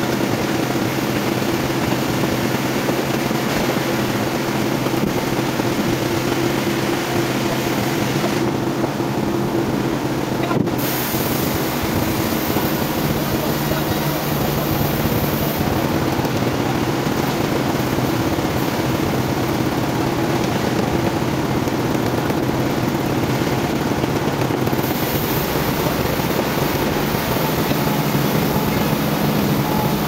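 Sawmill machinery running steadily, a constant mechanical hum with a low drone, with one short knock about ten seconds in.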